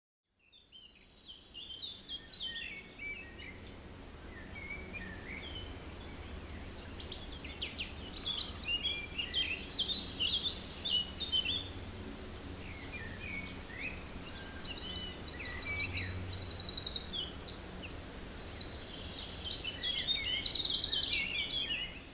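Outdoor ambience of many small birds chirping and warbling, with bursts of rapid high trills in the second half over a low steady background hum.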